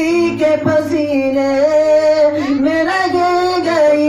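A man singing a naat couplet in a high voice through a microphone, holding long sliding, wavering notes without words.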